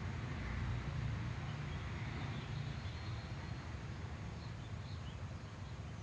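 Outdoor background noise: a steady low rumble, with a few faint high chirps about four to five seconds in.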